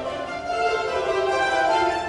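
Mandolin orchestra of mandolins, guitars and double basses playing an overture, with many held notes sounding together; the music grows slightly louder about half a second in.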